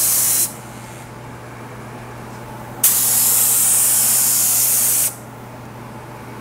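Spray gun hissing as it sprays Hydrogator activator onto hydrographic film floating on the dip tank. The first spray cuts off about half a second in, and a second pass of about two seconds starts near the middle. A steady low hum runs underneath.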